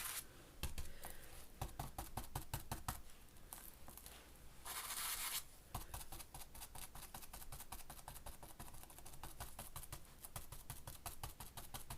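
A stiff stencil brush dabbing and scrubbing paint onto paper. There are short scrubbing rushes at the start and about five seconds in, then a fast run of light taps through the second half.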